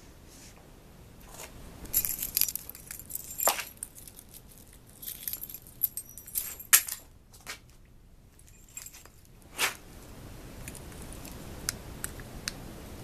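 Small hard objects jingling and rattling in a few short bursts, with sharp clicks, then a few light ticks near the end.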